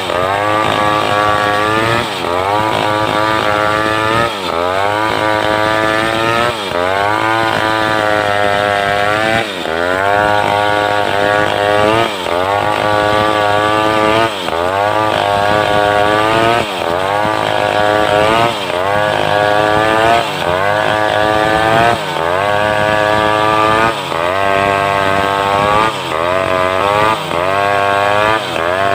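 Home-built two-stroke chainsaw running at high revs while ripping a log lengthwise, its engine pitch repeatedly dipping and climbing back up about every two seconds as it works under load in the cut.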